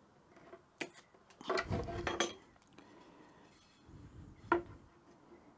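A few light knocks and clicks as a hardwood fence strip is handled and set down against a melamine board: a single click about a second in, a short cluster around two seconds, and one more knock near the end.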